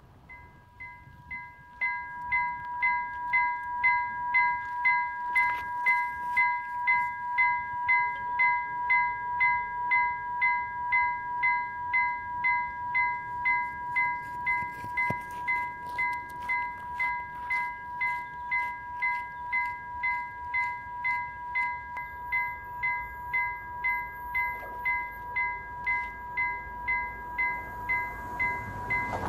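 Railway level crossing warning bell ringing with evenly repeated strikes, about two a second, over a steady electronic tone. It starts faintly about a second in and is at full loudness a second later, warning of an approaching train.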